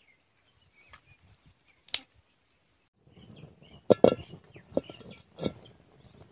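A few sharp snaps from a small twig fire between stones, then, from about three seconds in, a run of knocks and clinks as a metal kadai with loose ring handles is set on the stones over the fire.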